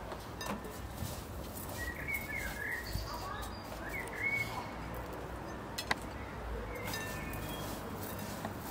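Small birds chirping in short bursts about two seconds in and again around four seconds, over a steady low background noise, with a sharp click near six seconds.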